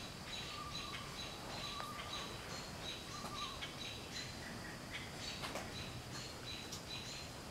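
Background animal chirping: short high chirps repeating about three times a second, with a lower warbling call a few times in the first half. The uploader puts the chirping down to squirrels.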